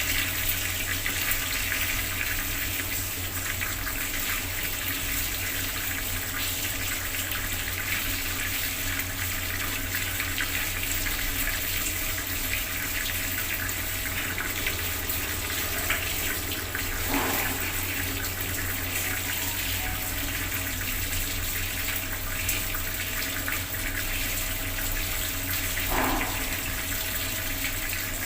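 Bathroom water tap running full, a steady splashing of water into a basin or tub, with a couple of brief splashier spots.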